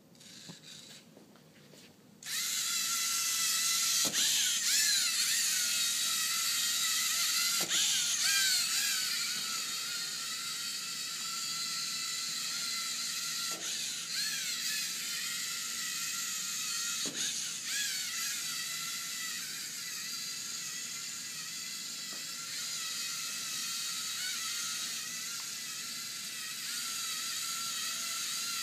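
LEGO Mindstorms NXT robot's electric drive motors whining as it drives, starting suddenly about two seconds in. The pitch wavers up and down as the motors change speed to steer, with a few sharp knocks along the way.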